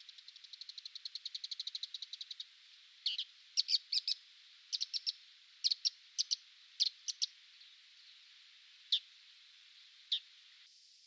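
Bull-headed shrike calling: a fast chattering run of sharp, high notes, about ten a second and growing louder, then sharp single and paired calls spaced out over several seconds.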